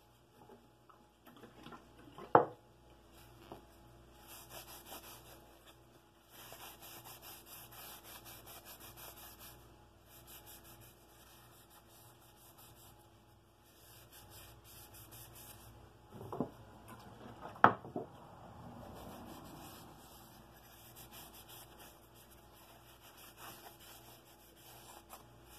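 A cloth rubbing Danish oil into a small wooden lucet, a soft scratchy wiping in stretches, with a few sharp knocks about two seconds in and twice around sixteen to eighteen seconds in.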